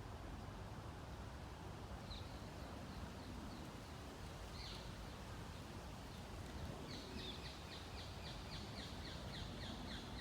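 A small bird calling: a few short, high chips, then near the end a fast, even run of high notes, about four or five a second, over a steady low background rumble.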